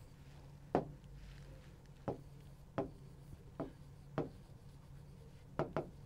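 Stylus tapping and stroking on an interactive whiteboard screen as a word is handwritten: about seven short, light taps at irregular intervals, two of them in quick succession near the end.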